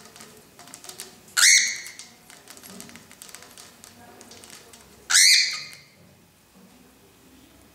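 Cockatiel giving two harsh, angry calls about four seconds apart, each about half a second long, with light clicks and taps in between.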